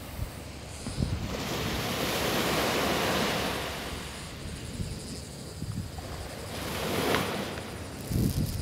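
Small waves breaking and washing up a sandy beach, the surf swelling twice, with wind rumbling on the microphone near the end.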